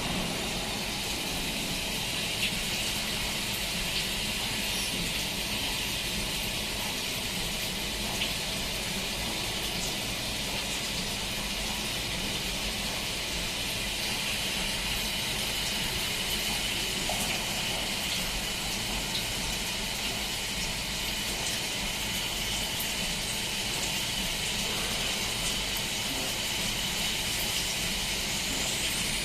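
Swiss-type CNC lathe running, with a steady rushing hiss of coolant flowing over the work and a few faint ticks.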